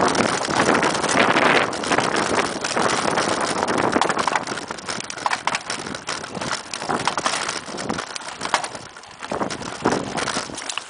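Mountain bike ridden fast over a forest dirt singletrack: the tyres run over the dirt and the bike rattles and knocks over bumps, with wind buffeting the microphone.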